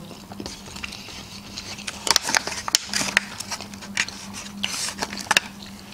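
Eating sushi rolls: soft chewing with scattered small clicks and scrapes of wooden chopsticks against plastic sushi trays.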